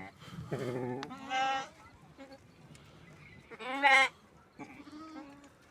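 Sheep bleating: a few short, quavering calls, the loudest near four seconds in.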